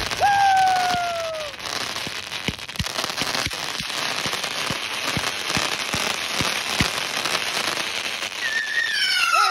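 Mortal Instruments 50-shot firework cake firing. A falling whistle comes just after the start, then a dense crackling hiss with a run of short low thumps, about two a second, as shots lift from the tubes. A second falling whistle comes near the end.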